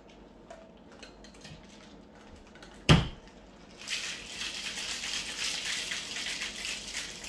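A small paper packet of dried flowers being handled and shaken out over a glass: faint rustling, a single sharp knock about three seconds in, then a steady crackly rustle of paper and dried petals from about four seconds on.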